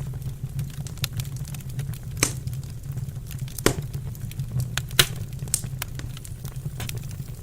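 Wood fire crackling in a fireplace: a dense stream of small snaps with a few louder pops, over a steady low rumble.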